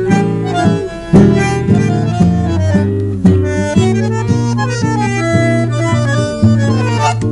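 Bandoneón and guitar playing an instrumental tango passage: the bandoneón holds reedy chords that change every half second or so, while the guitar plucks notes over them.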